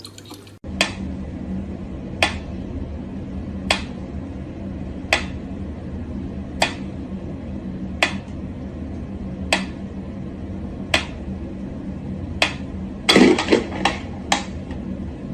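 Sharp clicks or taps repeating evenly about every second and a half over a steady low hum, with a brief louder clatter near the end.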